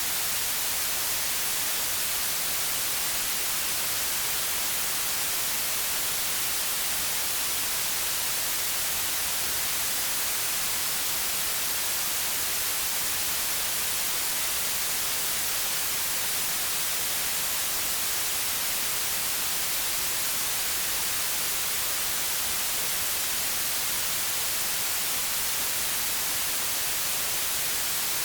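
Steady white noise: an even, unchanging hiss weighted toward the high end.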